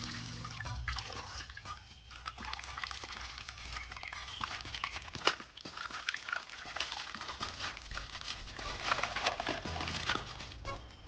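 Toy packaging being handled and unwrapped: scattered rustles and sharp little clicks of plastic.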